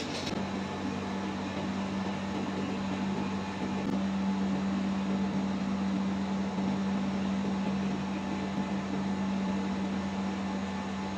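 Steady hiss of a gas brazing torch flame on a freezer's copper refrigerant tubing, joined by a steady low hum that grows louder about four seconds in.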